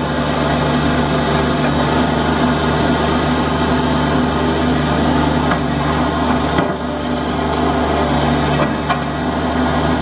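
Toro Dingo TX427 compact tracked loader's Kubota diesel engine running steadily as the loader arms lower the bucket, with a brief dip in the engine note and a click about two-thirds of the way through.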